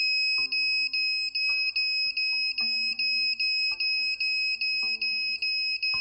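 Piezo buzzer on a homemade 555-timer smoke detector alarm sounding a loud, high-pitched steady tone broken by short gaps two or three times a second, set off by match smoke at its MQ5 gas sensor. Plucked guitar music plays quietly underneath.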